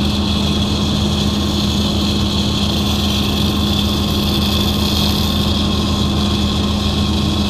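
Steady drone of welding-shop machinery running, a constant low hum with a hiss over it.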